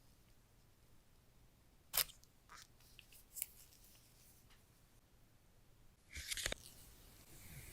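iPhone box packaging being handled and opened: a few sharp clicks and scrapes, the loudest about two seconds in, then a brief rustling tear of paper or plastic wrap about six seconds in.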